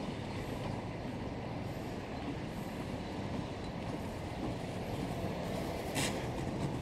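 Steady rumble of cars passing close by, mixed with a red Meitetsu electric train running away into the distance, with a brief higher hiss about six seconds in.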